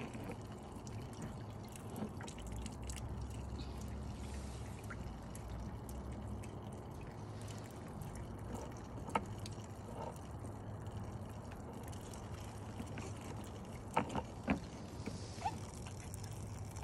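Water from a small pump-fed garden fountain trickling and dripping off a rock down the steel face into the pond, a steady splashing. A few short light knocks come in, once about halfway through and twice near the end.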